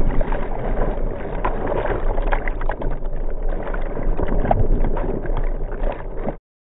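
Breaking surf churning around a camera held in the whitewater: a steady rush of water with many short splashes and crackles over a low rumble, cutting off suddenly near the end.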